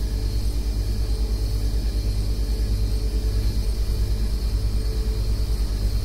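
Diesel freight locomotive engine running, a low rumble with a fast, even throb of about a dozen pulses a second.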